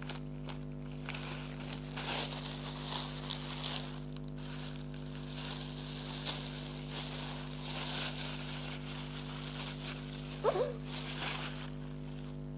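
Plastic parcel packaging crinkling and rustling in irregular bursts as it is torn open by hand, over a steady electrical hum.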